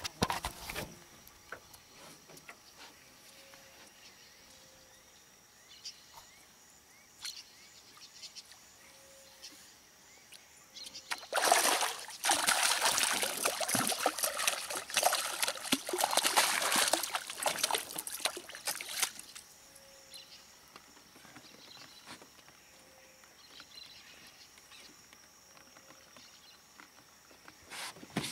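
Loud water splashing for about seven seconds, starting about eleven seconds in: a fish hooked on a surface lure thrashing at the surface of the river. Before and after, only faint ticks over quiet.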